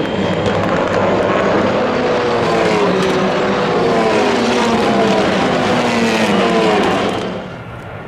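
A pack of TCR touring cars, each with a 2.0-litre turbocharged four-cylinder, racing past in close company: several engine notes overlap, their pitches sliding down one after another. Near the end the sound drops suddenly to a quieter, more distant engine drone.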